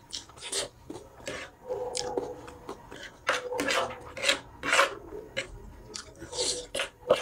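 Metal spoon and fork scraping and clicking against a plate while scooping up food, in a string of short scrapes that are loudest in the middle, with chewing close to the microphone.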